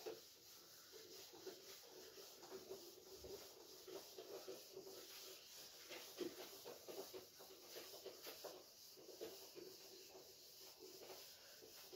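Faint rubbing of a handheld duster wiping marker off a whiteboard in repeated, irregular strokes.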